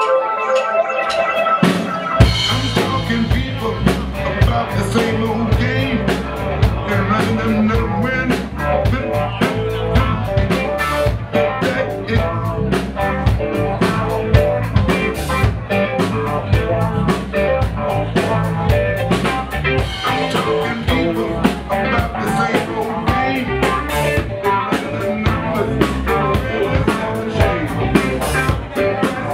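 Live band playing an instrumental groove. A few held notes sound alone, then about two seconds in the drum kit comes in with a steady beat and a heavy low end, and guitar and electronic parts carry on over it.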